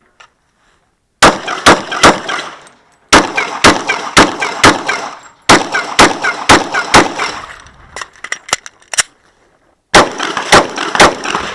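Glock 22 .40-calibre pistol fired in several quick strings of shots, each string a few rapid shots, with short pauses between strings.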